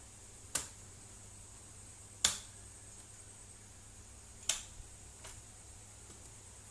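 Sharp plastic clicks, three loud ones about two seconds apart and a fainter one near the end: the snap-fit clips of an HP 14-bs002tu laptop's case popping loose as it is pried open.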